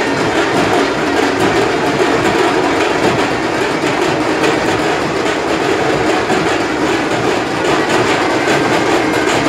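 Dhol drums beaten in a fast, dense, continuous rhythm, loud and unbroken, mixed with the din of a packed crowd.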